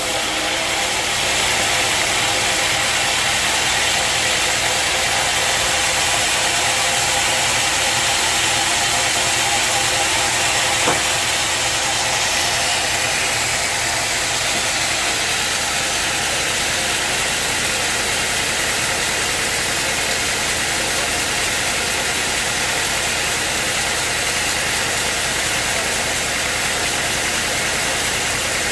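Sawmill engine running steadily, with one sharp click about eleven seconds in.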